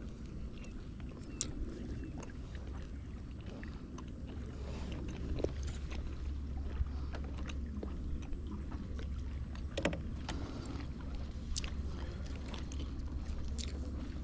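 Small boat on the water: a steady low rumble and hum, growing a little stronger about four seconds in, with scattered light knocks and clicks.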